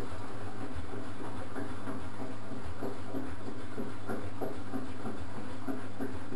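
EBD Classic 1000 front-loading washing machine turning its drum in a vinegar descaling wash at a high water level. A steady motor hum runs under the irregular sloshing and splashing of the water in the drum.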